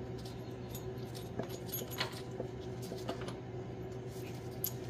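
Faint, scattered metallic clicks of connecting-rod cap nuts and bolts being handled and threaded on by hand under a Farmall 450 engine, over a steady low hum.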